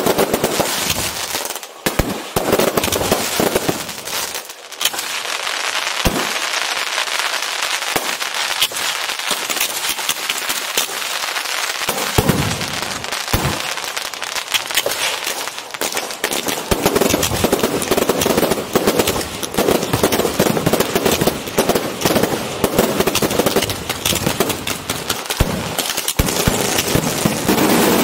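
Strings of firecrackers going off in a dense, continuous crackle of rapid bangs, thickening into a heavier barrage about two-thirds of the way through: a firecracker salute.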